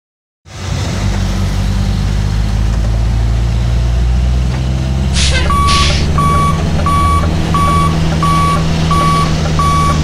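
Sound effect of a heavy construction vehicle's diesel engine running with a steady low rumble. About halfway through come two short hisses, then a reversing alarm starts beeping evenly, about three beeps every two seconds, which signals the vehicle is backing up.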